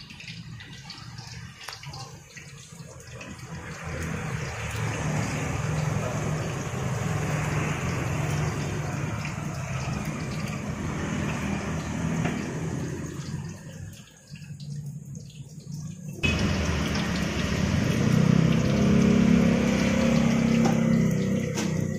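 Roadside traffic noise: a steady rush of passing vehicles, then a motorcycle engine running close by, starting suddenly about sixteen seconds in and louder than what came before.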